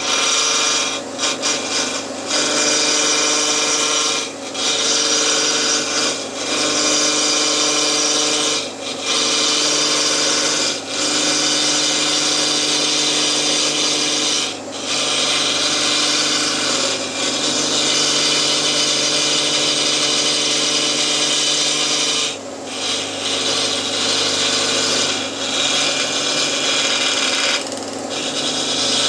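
Wood lathe spinning a segmented bowl blank at about 1,000 rpm while a hand-held turning tool cuts the corners off its outside: a loud, steady scraping hiss of the tool in an interrupted cut over the hum of the lathe, breaking off briefly every few seconds as the tool is eased back.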